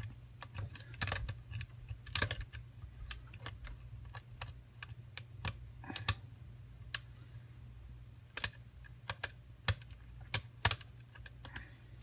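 Metal hook pick and tension tool clicking and scraping against the pins inside a Tobias & Julian Piston Stroke high-security lock cylinder during single-pin picking: irregular sharp small clicks, some in quick clusters.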